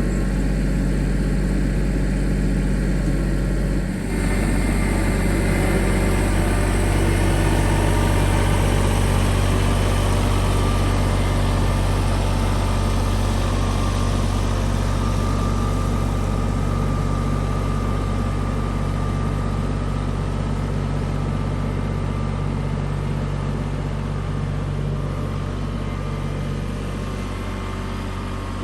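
Tractor engine running steadily. There is a brief dip and change in its note about four seconds in, and it slowly fades toward the end.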